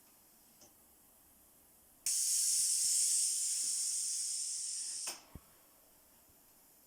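Compressed air hissing through the pneumatic valve of a low-cost mechanical ventilator prototype under pressure test. The hiss starts suddenly about two seconds in, lasts about three seconds, then cuts off with a click, and a second click follows.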